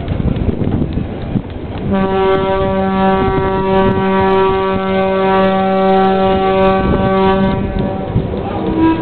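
A steam whistle blows one long, steady note for about five and a half seconds, starting about two seconds in. Under it runs the rumble of a steam lorry passing close by.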